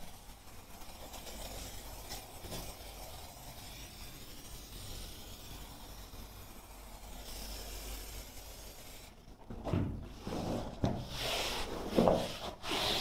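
Aerosol spray adhesive hissing steadily as it is sprayed onto a concrete floor. About nine seconds in, carpet underlay rubbing and scuffing in irregular bursts as it is laid onto the glue and pressed flat by hand.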